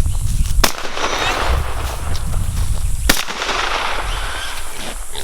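Two 12-gauge shotgun shots about two and a half seconds apart, fired at wild pigs.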